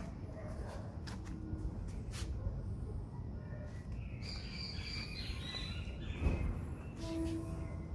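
Outdoor background ambience: a steady low rumble with a few faint clicks, and small birds chirping, most clearly from about halfway through.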